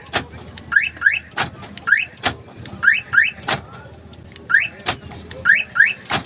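Newly installed aftermarket car alarm cycling through arm and disarm. Its siren gives short rising chirps, sometimes one and sometimes a quick pair, and sharp clacks from the central-locking actuators come between them, about once a second.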